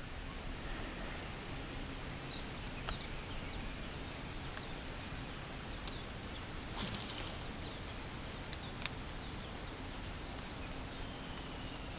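Quiet lakeside ambience with a bird repeatedly giving short, high, falling chirps, a few a second. About seven seconds in there is a brief burst of noise, with a couple of faint clicks around it.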